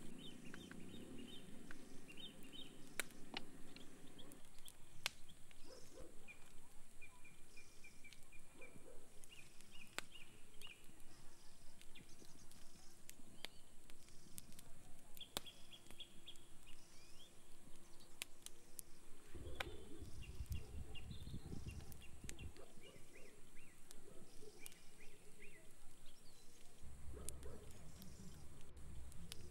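Wood campfire crackling with frequent sharp pops, while small birds chirp in short repeated phrases over a steady rush of river water. Low rumbling handling noise comes in about two-thirds through and again near the end.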